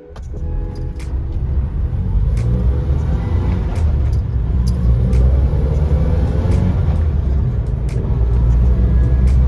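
Datsun Sunny Truck's 1.2-litre A12 four-cylinder engine running, a low rumble that starts suddenly and builds over the first couple of seconds, then holds steady with scattered sharp clicks over it.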